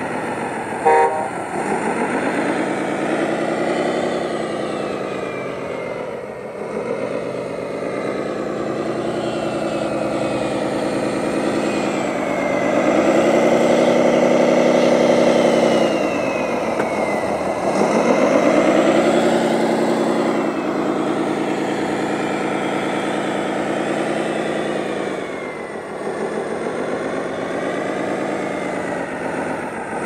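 Engine sound of an RC model Komatsu WA600-6 wheel loader, revving up and settling back several times as it works. A brief horn toot comes about a second in.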